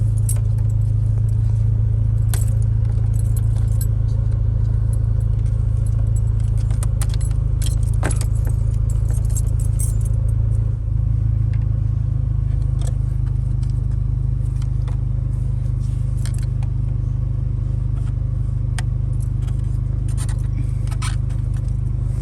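Light clicks and the jangle of keys at a Honda Civic's steering column as the wiper switch's connectors are unplugged and the switch is pried out, over a loud steady low hum.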